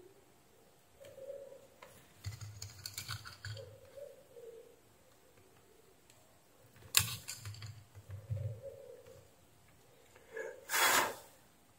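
Soldering-iron work on a power-supply circuit board: scattered small clicks and crackles, a sharp click about seven seconds in, and a short hissing burst near the end.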